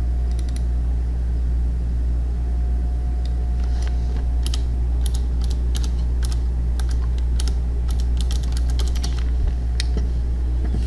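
Computer keyboard typing: a run of quick keystrokes from about three seconds in until near the end, over a loud steady low hum.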